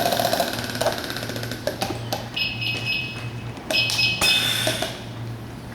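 Firefighters' SCBA breathing apparatus going on air: loud air hissing that eases off after about a second and a half, clicks, short hissing breaths through the regulators, and brief electronic tones twice, about two and a half and three and a half seconds in, over a steady low hum.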